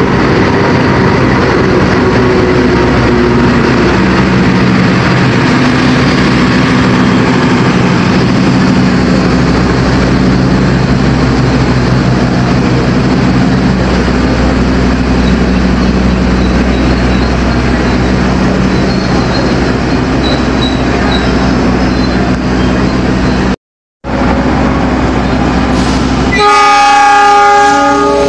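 Diesel-electric locomotive engine running steadily while its passenger train stands. Near the end, after a cut, the locomotive's multi-tone horn sounds loudly for about a second and a half as the train sets off.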